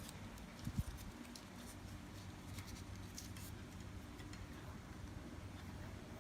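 Sheets of A4 paper being handled and folded, with faint scattered crinkles and light taps and a soft thump about a second in, over a steady low hum.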